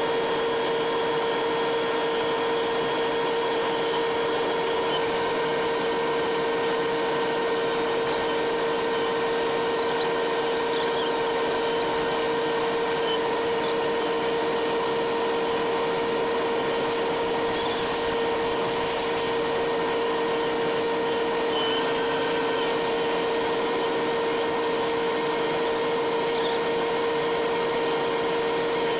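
Combine harvester running steadily while harvesting corn: an even machine hum with a steady whine, and a few faint squeaks over it.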